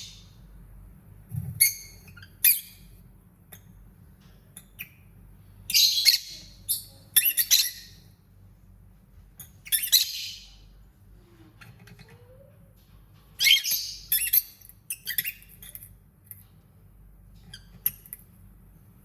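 Lovebird giving short, high-pitched chirps and squawks in bursts every few seconds, with quiet gaps between.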